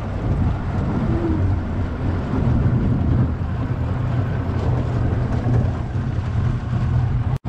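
Boat motor running steadily as the fishing boat moves along, a constant low hum with a brief break near the end.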